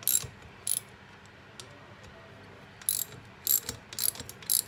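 Ratchet wrench with a 14 mm socket clicking in short bursts as it snugs down the cylinder head nuts of a Honda CT110 engine: two quick bursts near the start, a pause, then several more in the last two seconds.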